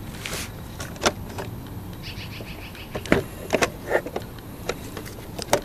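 Hard plastic clicks and knocks as a Jeep Cherokee XJ instrument cluster is handled and turned over on a wooden table, with a short rapid rattle about two seconds in. The sharpest knocks come about three seconds in and just before the end.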